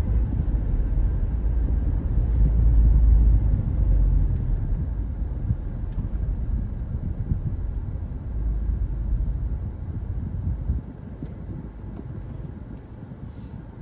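A car being driven through city traffic: a low, uneven rumble of road and engine noise that drops in level about eleven seconds in.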